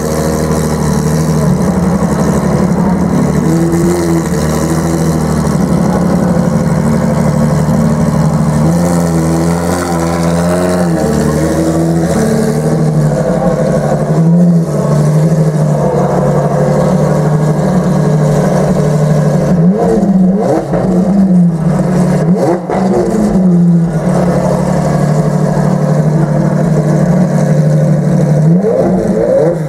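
Ferrari LaFerrari FXX K's naturally aspirated V12 idling, blipped repeatedly in short revs that rise and fall back, the blips coming more often in the second half.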